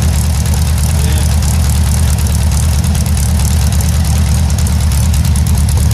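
Air-cooled Volkswagen-type flat-four engine on a test stand idling steadily, its fast even firing pulses loud and unchanging.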